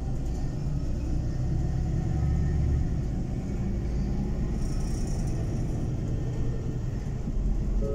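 City bus driving along, a steady low engine and road rumble heard from inside the passenger cabin, with a brief hiss about five seconds in.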